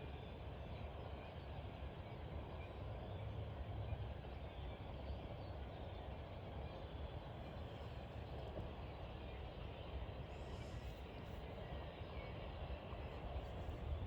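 Steady outdoor background noise with a low rumble and no distinct calls standing out.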